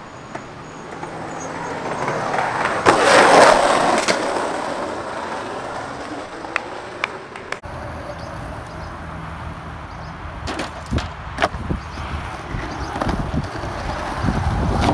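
Skateboard wheels rolling over rough concrete, swelling loudest about three seconds in, with several sharp clacks of the board against the ground.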